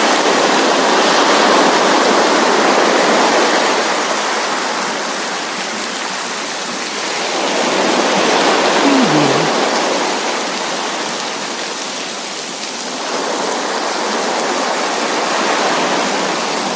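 Coastal sea waves and falling rain: a continuous rushing hiss that swells and ebbs every few seconds as the waves wash in and draw back.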